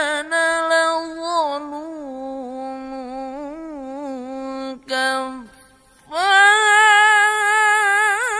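Melodic Quran recitation by a qari in the drawn-out, ornamented mujawwad style: one long held note with wavering pitch ornaments that breaks off about five seconds in. After a short gap a voice comes back in, louder and on a higher held note.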